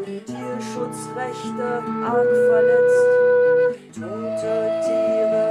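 Acoustic folk instrumental: a low whistle plays long held notes over a strummed acoustic guitar. There is a brief gap near the middle before a higher held note.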